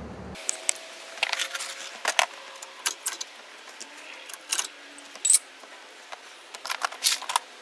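Small metal parts clinking and rattling as they are handled, in scattered clusters of sharp clicks and taps, most likely while the ceiling fan is taken apart.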